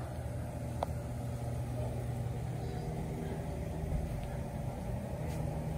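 Steady low mechanical hum and rumble, with one light click about a second in.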